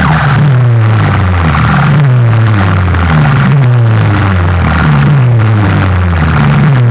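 Very loud, distorted bass-heavy electronic sound from a competition DJ loudspeaker rig: a deep falling tone repeats about once a second, like a revving or siren effect.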